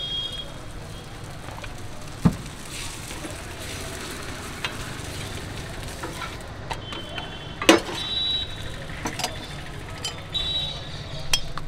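Oil sizzling steadily as a layered paratha fries on a flat iron tawa. A steel spatula knocks against the griddle a few times with sharp clicks, and a few short high-pitched tones come and go in the second half.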